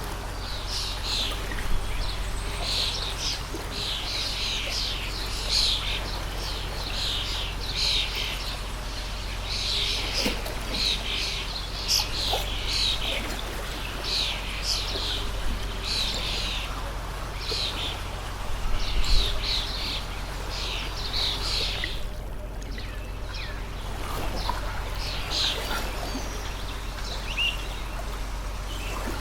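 Many small birds chirping in quick, repeated calls over the steady rush of a running stream; the chirping stops for about two seconds roughly three-quarters of the way through.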